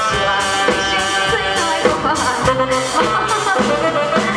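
Loud pop song backing music over a stage sound system, with sustained keyboard-like notes over a steady drum beat.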